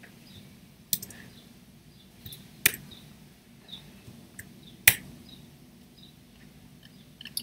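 Computer mouse and keyboard clicks as text is selected, copied and pasted: about five sharp clicks spaced unevenly a second or two apart, with fainter ticks in between.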